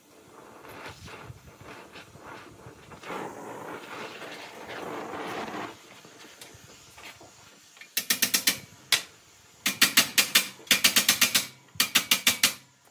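Oxy-acetylene torch flame hissing against a steel bar, then rapid hammer blows on the torch-heated steel bar in several quick runs, starting about eight seconds in and much louder than the flame.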